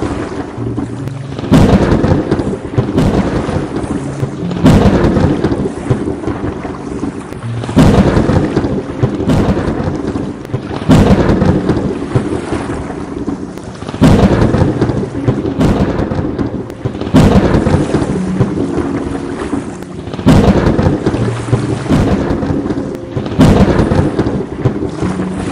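Thunderstorm with steady rain and repeated thunder, a loud crack breaking suddenly about every three seconds and fading before the next.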